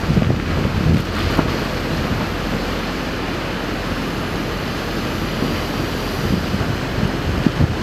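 Steady rush of wind and sea water, with wind buffeting the microphone in low gusts near the start and near the end.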